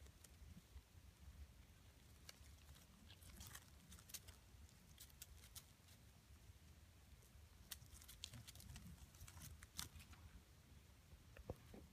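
Near silence with faint, scattered crackles and rustles of goat kids stepping and grazing in dry leaf litter, over a low steady rumble.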